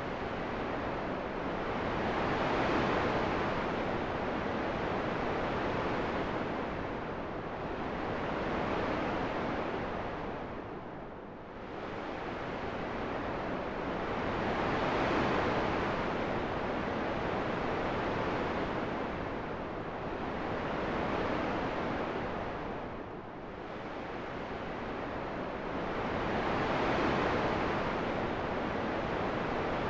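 Steady rushing wind noise that swells and eases in slow gusts, dipping briefly twice.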